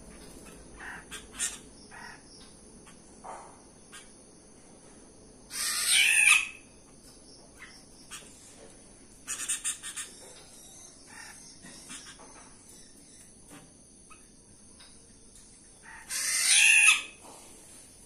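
A rooster crowing twice, about ten seconds apart, each crow about a second long and dropping in pitch at the end. Behind it are a steady high cricket trill and a few short bird chirps.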